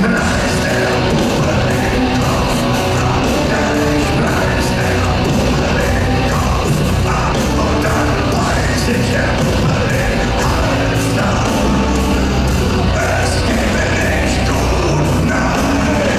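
Live heavy metal from a band on stage: distorted guitars, drums and a singer's yelled vocals, heard from among the audience.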